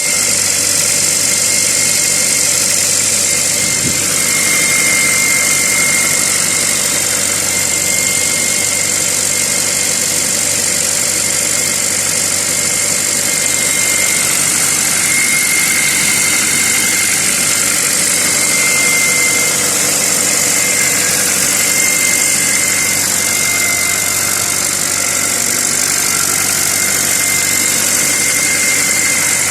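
Hyundai Creta engine running at idle with a high-pitched whistle that swells and fades, which the owner puts down to the alternator.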